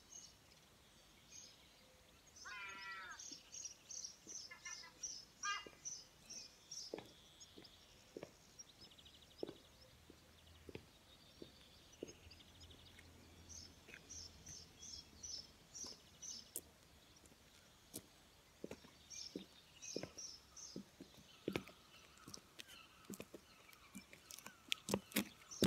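Footsteps of leather boots on block paving, about one step a second, growing louder near the end as they approach. Songbirds sing repeated high notes and short trills throughout.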